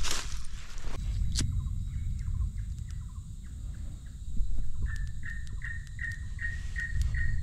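An animal call of short, slightly falling notes repeated about two or three times a second. It is faint at first and grows clearer in the second half, over a low steady rumble. There is a single sharp click about a second and a half in.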